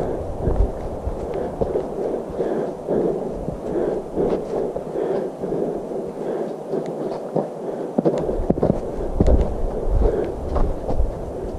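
A hiker's footsteps on a dirt and snow trail, about two steps a second, with a low rumble of wind on the microphone that eases off for a few seconds in the middle.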